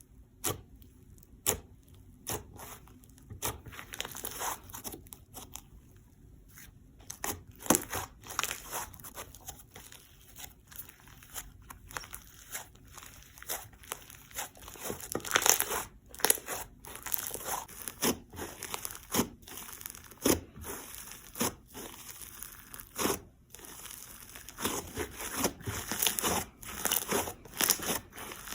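Slime being handled by hand, with irregular sticky crackles and small clicking pops that come more thickly in the second half.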